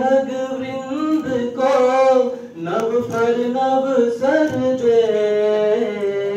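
A man's voice singing a slow devotional chant in long held notes that glide gently between pitches.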